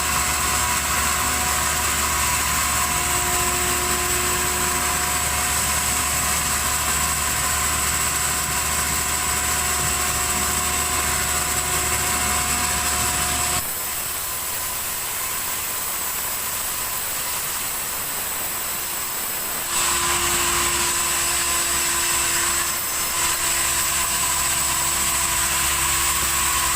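Sawmill machinery running steadily as a saw cuts a log, a constant whining hum. About halfway through it turns quieter for some six seconds, then comes back to full level.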